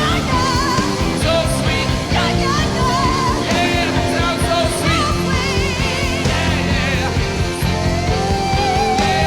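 Live rock band playing with a strongly wavering vocal line over it; near the end a singer slides up into one long held note.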